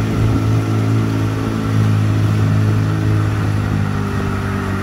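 Small boat's outboard motor running steadily at cruising speed, an even engine hum.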